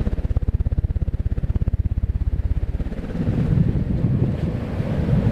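1986 Air Cool 52-inch flush mount ceiling fan running on high, its draft buffeting the microphone with a fast, even pulsing. About three seconds in, the pulsing gives way to a rougher, uneven wind rumble.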